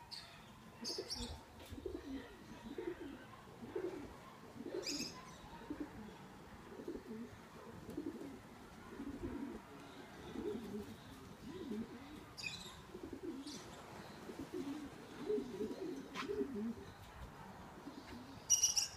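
Pigeons cooing over and over in low warbling phrases, with a few short high chirps from a bird now and then, the loudest near the end.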